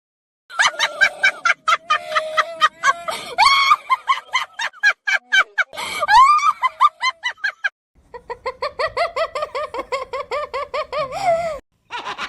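Laughter sound effects played one after another: a fast, high-pitched cackling laugh from about half a second in, then, after a brief break, a steady rhythmic laugh of about six beats a second that stops abruptly, with a new laugh starting near the end.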